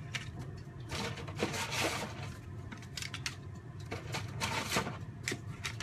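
Dry lasagne sheets being laid into a ceramic baking dish: soft brushing and scraping as they are slid into place, with several light clicks and taps of the stiff pasta against the dish and against each other.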